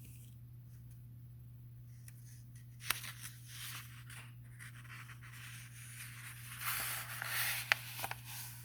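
Soft rustling and scraping with two sharp clicks, starting about three seconds in, over a steady low electrical hum.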